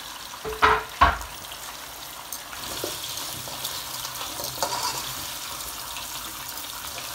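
Sliced carrots and potatoes sizzling in hot oil in a nonstick pot, turned over with metal tongs, with a steady hiss and fine crackle. Two sharp knocks come about a second in.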